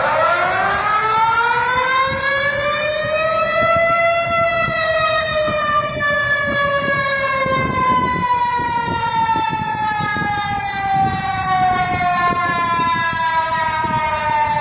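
Emergency warning siren wailing. Its pitch climbs for about four seconds and then falls slowly and steadily for the next ten.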